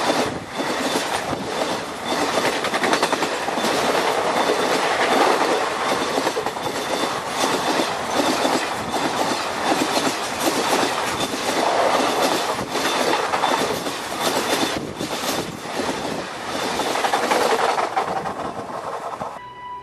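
Indian Railways passenger coaches passing at speed close by, their steel wheels clattering rhythmically over the rail joints amid a steady rushing roar. The sound cuts off abruptly just before the end.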